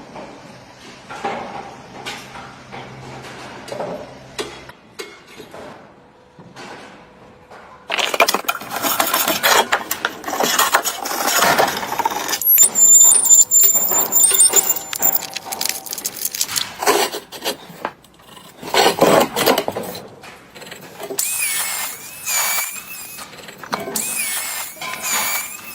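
Construction tool noise: light clicks and knocks at first, then from about eight seconds in a much louder stretch of dense tool work with many knocks. Near the end there are bursts with a wavering high whine.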